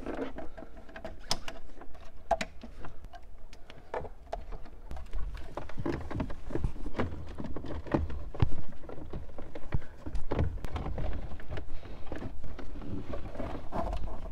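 Irregular clicks, knocks and rustling from plastic wiring-harness connectors and cables being plugged into the back of a JVC double-DIN car radio. Near the end the radio is lifted and pushed into the dash opening.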